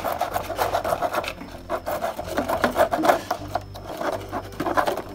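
Hacksaw blade sawing through a grey PVC pipe by hand, a quick run of rasping back-and-forth strokes.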